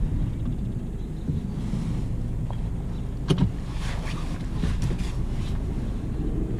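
Steady low rumble of a 2011 Kia Sportage's four-cylinder engine and tyres heard from inside the cabin as it pulls away and turns at low speed, with a single knock about three seconds in.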